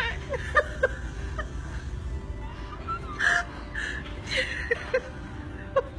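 Breathy gasps and short broken vocal sounds from a person, coming in scattered bursts over a steady low rumble.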